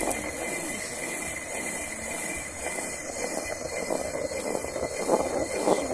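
Two-piece stone hand mill (quern) grinding rice into flour: the heavy upper millstone turned by hand on the lower stone, making a steady grinding rumble.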